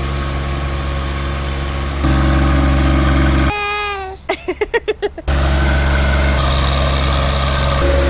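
John Deere 1025R compact tractor's three-cylinder diesel engine running steadily, louder after about two seconds. In the middle the engine drops out for under two seconds while a high voice calls out briefly, then the engine hum returns.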